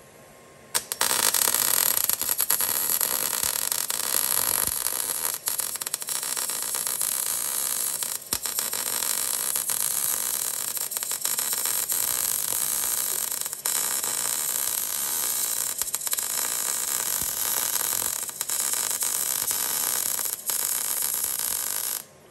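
Wire-feed welder running a long bead, welding a steel strengthening plate to a car's chassis rail. The steady sizzling starts about a second in, has a few brief breaks where the trigger is let off, and cuts off suddenly near the end.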